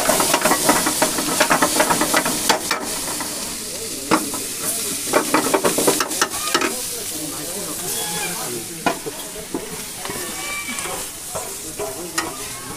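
Food sizzling in hot oil in a pan while a metal ladle stirs and scrapes it, with sharp clinks of metal on metal. The sizzle is strongest in the first few seconds, then fainter.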